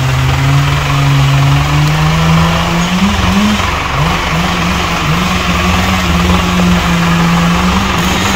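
Mahindra Arjun Novo 605 DI tractor's diesel engine running under way; about three seconds in it revs up, wavers briefly, then holds a steady higher speed.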